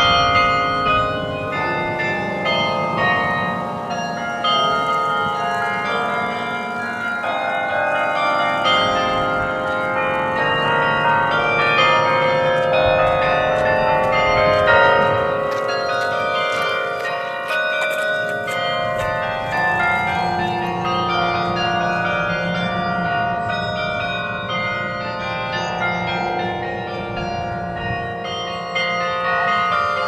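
Bells of the Berlin Carillon played by hand from its keyboard: a melody with chords, many bell notes struck in quick succession and ringing on over one another.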